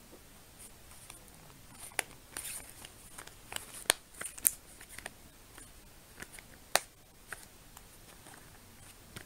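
Plastic phone case being fitted onto a smartphone by hand: soft handling rustles broken by a handful of sharp plastic clicks at irregular moments, the loudest about two seconds in, around four seconds and near seven seconds.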